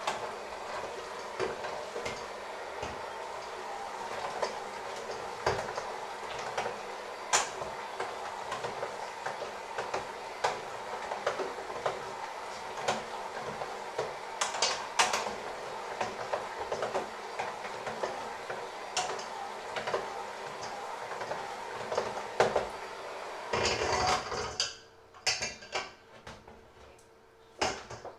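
Electric hand mixer running with dough hooks in a stainless steel bowl, the hooks clattering and knocking against the metal as they work a thick dough. The motor stops a few seconds before the end, followed by a few knocks.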